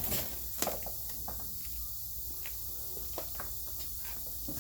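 Scattered light clicks and taps of tools and parts being handled during work on a car's rear wheel hub, over a steady low hum.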